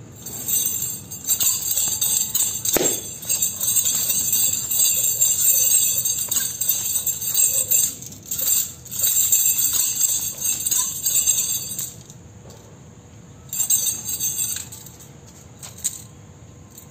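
Metal nunchaku being swung fast through a form, the chain jangling and clinking in long runs with brief breaks. There is a single sharp knock about three seconds in. The jangling stops about twelve seconds in and then returns briefly.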